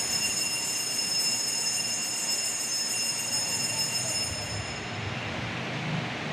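Altar bells ringing at the elevation of the chalice after the words of consecration: a bright, high, sustained ringing that dies away about four to five seconds in.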